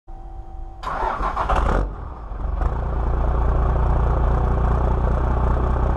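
Second-generation Dodge Ram's Cummins turbo-diesel starting: a brief steady hum, then about a second of starter cranking, a short lull, and the engine catches just under three seconds in and settles into a steady diesel idle.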